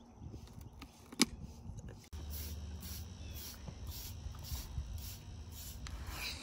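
Metal shedding blade scraping through a horse's shaggy winter coat in quick repeated strokes, about three a second.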